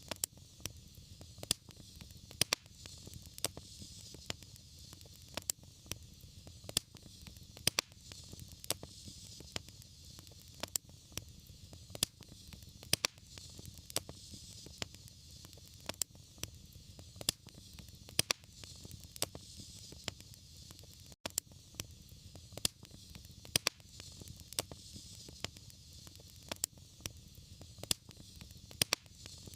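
Wood fire burning in a fireplace, crackling with frequent irregular sharp pops over a steady low rumble and soft hiss.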